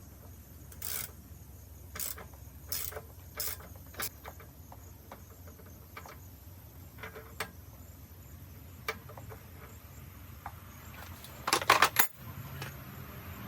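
Scattered light metallic clicks and taps from handling the pressure washer pump's check valve parts, with a louder burst of clattering near the end.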